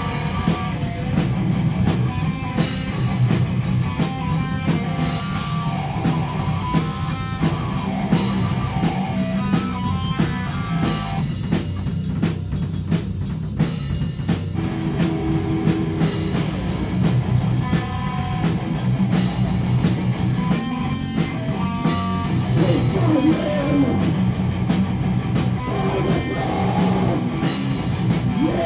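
Rock band playing loud and without pause: a drum kit with busy cymbal and drum hits, electric guitar, and a heavy low end. The middle of the sound thins out briefly about twelve seconds in while the cymbals carry on.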